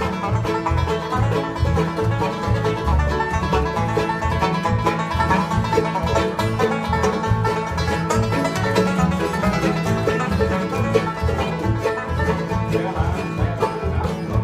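Live acoustic bluegrass jam: banjo, fiddle and guitars playing a tune together over a steady low beat.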